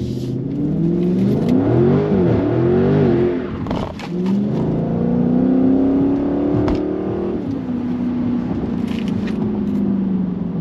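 Widebody Dodge Charger's V8 engine revving: two quick rises and falls in pitch, then a dip and a long climb for a few seconds before it drops back to a steadier, lower drone.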